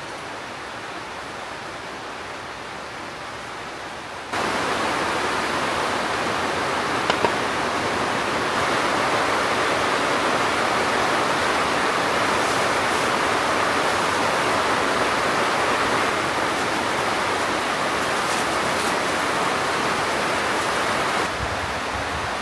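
Heavy rain falling, a steady hiss that jumps louder about four seconds in.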